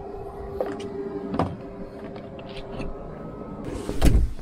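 Knocks and bumps of someone moving about a small boat and into its pilothouse cabin, over a steady low hum, with a loud thump and a brief rush of noise near the end.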